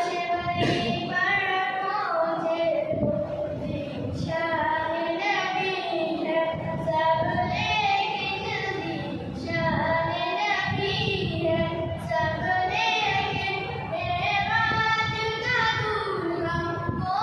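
A high voice singing an Urdu naat, a devotional song in praise of the Prophet, in long held notes with sliding ornaments, phrase after phrase without a break.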